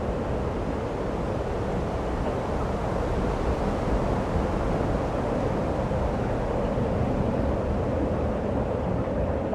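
Steady rushing roar of snowstorm wind, even and unbroken, heaviest in the low and middle range.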